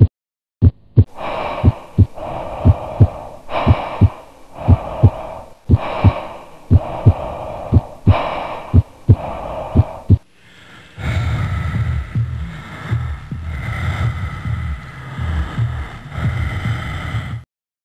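Added heartbeat sound effect, a steady run of low thumps, with heavy gasping breaths swelling over it about once a second. About eleven seconds in it gives way to a denser throbbing sound that cuts off suddenly near the end.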